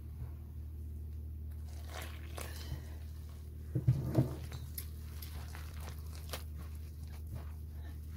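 Hand mixing flour and water into dough in a glass bowl: soft crumbly rustling and squishing, with water poured in. A couple of dull thumps about four seconds in are the loudest sound, over a steady low hum.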